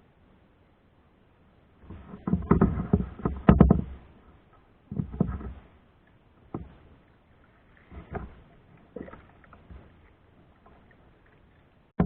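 Kayak paddling: irregular splashes and knocks of the paddle against the water and hull, the longest stretch about two seconds in, then shorter strokes, and a loud one at the end.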